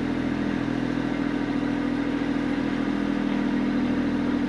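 Compact tractor engine idling steadily.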